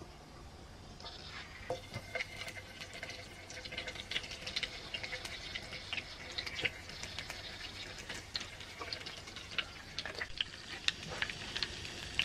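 Food sizzling and crackling in a hot pan, starting about a second in, with many small pops throughout.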